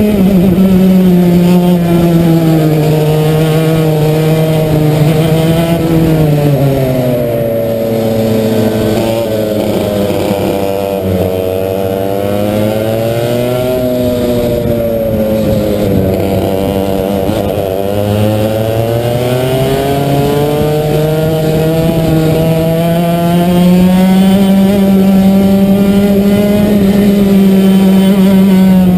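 Racing kart engine heard from on board, its pitch falling and rising as the kart eases off and accelerates through the lap. The pitch drops twice through the middle, then climbs steadily and holds high near the end.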